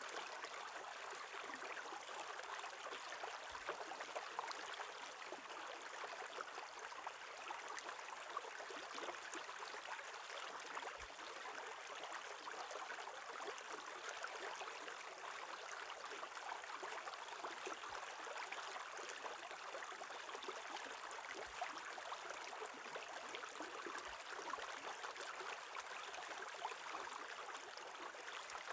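Shallow stream water running and splashing over a rock: a steady rushing with fine splashes throughout.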